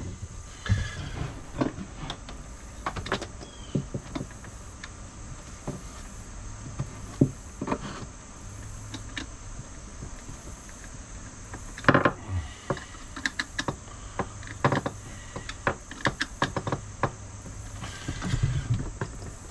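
Hands working wiring and plastic connectors inside a plywood cabinet: scattered clicks, taps and knocks of wires and terminals, the sharpest about twelve seconds in, over a steady low hum.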